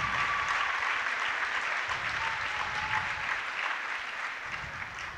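Crowd applauding, a steady patter of many hands clapping that slowly dies down.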